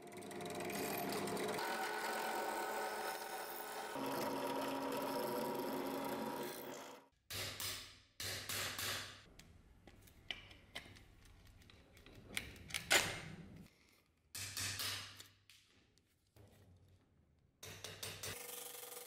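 A small handheld power tool with a fine pointed bit buzzing against a small metal plate. It runs steadily for about seven seconds, its pitch shifting about four seconds in, then works in a string of short bursts, one sharper than the rest near the middle.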